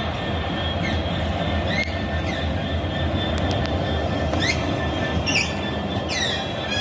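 Train hauled by Class 66 diesel locomotive 66727 passing with a steady rumble, broken by a weird squeaky noise: short high squeals that slide in pitch, coming more often towards the end.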